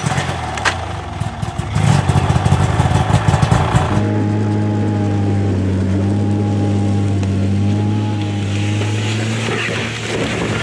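Snowmobile engine running while it tows a freight sled over snow. It is rough and uneven for the first few seconds, then settles into a steady drone from about four seconds in.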